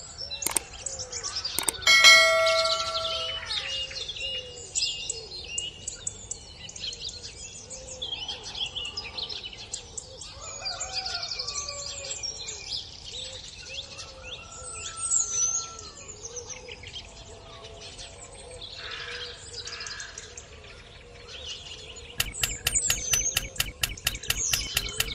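Birds chirping and singing throughout, with a single ringing bell-like ding about two seconds in and a fast run of regular clicks near the end.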